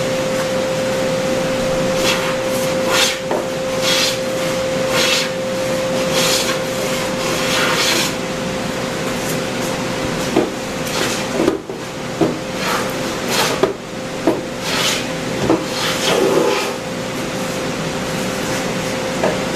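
Wood being worked by hand: rhythmic rasping or rubbing strokes on wood, then a run of sharp knocks on wood, all over a steady hum.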